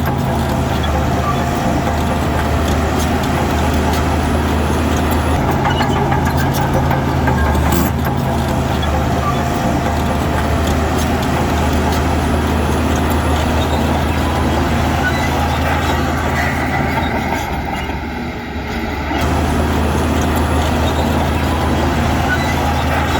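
Heavy diesel earthmoving machinery running steadily under load, with a deep, constant engine note; the level dips briefly about three quarters of the way through before the engine comes back up.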